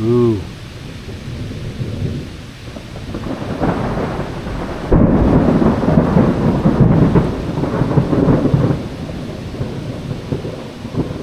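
Thunder from a nearby lightning strike: a rumble that builds about three seconds in, rolls loudest for several seconds with ragged crackling peaks, then dies away near the end.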